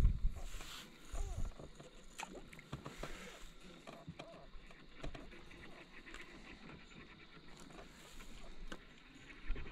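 Faint scattered clicks and light scrapes of a spinning rod and reel being handled, with a few louder knocks right at the start.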